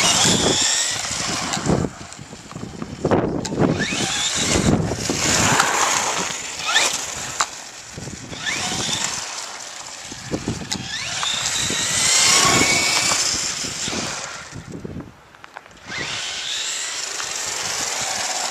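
Traxxas Slash 4x4 RC truck's brushless electric motor whining, rising and falling in pitch as the truck accelerates and slows, with hissy tyre noise on asphalt. The sound drops away briefly about three-quarters of the way through, then picks up again.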